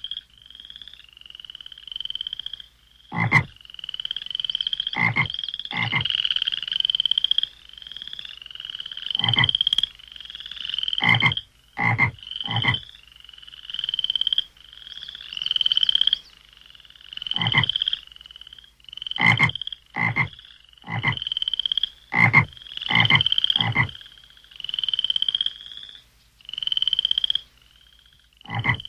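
Electronic keyboard sound effect: a run of short, high, chirping calls about once a second, each rising slightly in pitch, like a croaking frog, with sharp knocks mixed in at uneven intervals.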